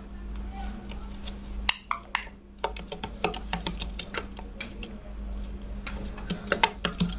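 Rapid, irregular sharp clicks and taps, several a second, over a steady low hum.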